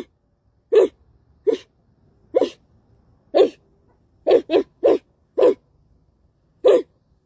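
A person's voice imitating a dog barking: about ten short, single barks at uneven intervals, with three in quick succession about halfway through.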